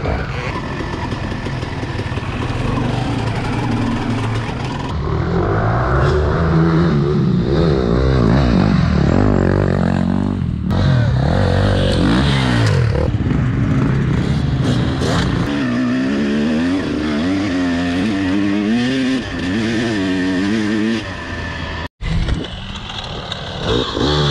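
Off-road dirt-bike engines revving hard and unevenly as riders clamber over a big log obstacle, the pitch swinging up and down repeatedly with each throttle blip. The sound cuts out for an instant near the end.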